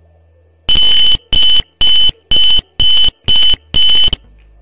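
Piezo buzzer in a simulated Arduino ultrasonic parking sensor circuit beeping seven times, about two short, high, steady beeps a second: the parking sensor's warning that an object is close to the HC-SR04 ultrasonic sensor.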